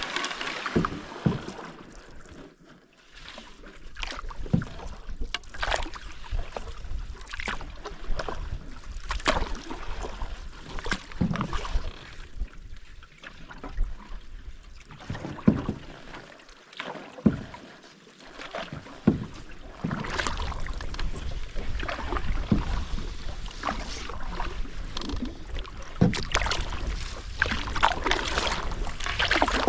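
Canoe being paddled: irregular paddle strokes and splashes every second or two, with occasional knocks, over a background hiss that grows and gains some low rumble in the second half.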